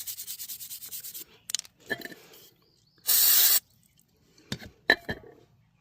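Stiff brush scrubbing a brake caliper in rapid strokes for about a second. About three seconds in comes a short hissing burst of aerosol brake cleaner, and a few sharp clicks and knocks from parts being handled follow.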